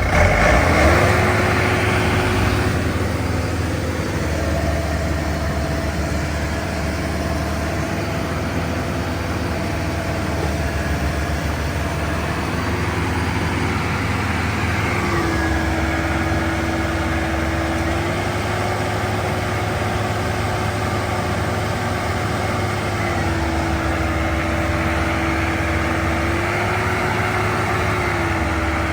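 Farm machine engine, from a rice harvester or a tractor, running steadily under heavy load. Its pitch dips and recovers several times as the load changes.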